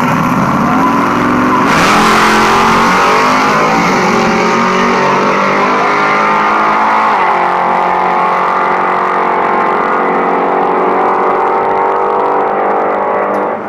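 A naturally aspirated small-block Chevy V8 in a Chevy Vega and a supercharged Dodge Charger SRT launching together off a drag strip start line at full throttle. The engines surge suddenly at the launch and climb in pitch through the gears, dipping briefly at a shift about seven seconds in.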